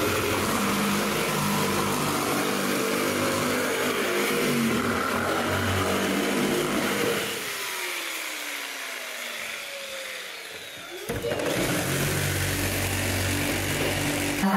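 Corded electric detail sander running against a wooden cabinet panel. It winds down with a falling whine about seven seconds in, then starts up and runs steadily again from about eleven seconds.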